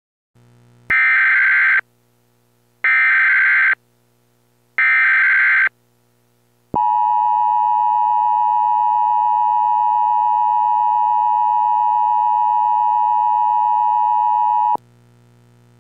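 Emergency-alert header in the style of NOAA Weather Radio: three short bursts of buzzing digital data tones, each just under a second, followed by a steady, high warning alarm tone held for about eight seconds that cuts off abruptly.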